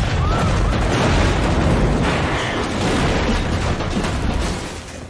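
Film sound effect of a grenade blast: a heavy, rumbling boom with a dense wash of noise that slowly dies away about four and a half seconds in.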